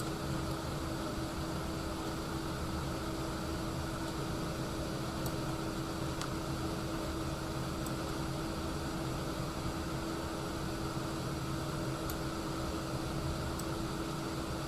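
Steady background hum and hiss with one constant mid-pitched tone, unchanging throughout: the room or equipment noise under a paused voice-over.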